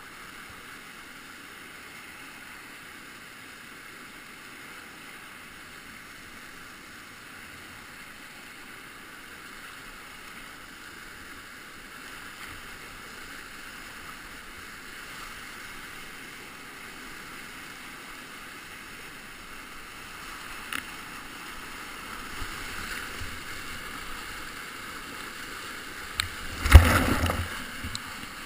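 Whitewater rapids rushing steadily around a kayak, heard from a camera on the boat. Near the end there is one loud, sudden hit on the microphone.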